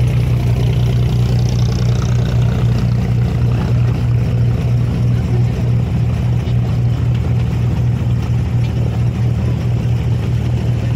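Diesel engine of an abra water taxi running at a steady cruising speed, a constant low hum heard from aboard the boat.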